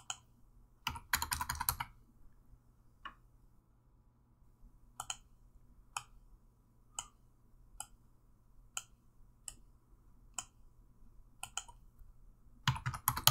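Computer keyboard typing: a quick run of keystrokes about a second in, then single clicks about once a second, and another quick run of keystrokes near the end.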